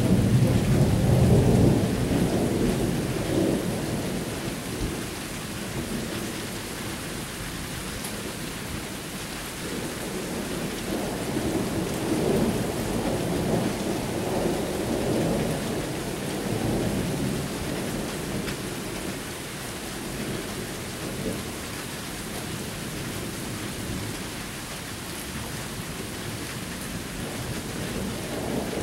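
Thunder rumbling over steady rain: a loud rumble fades away over the first few seconds, and a second, softer rumble swells and dies away around the middle.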